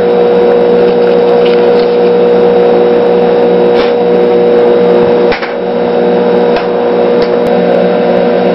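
Battery charger on its highest engine-start setting humming loudly and steadily under load as it drives current through a jar of water for electrolysis. A few faint clicks, and about five seconds in the hum's pitch content shifts and the level dips briefly.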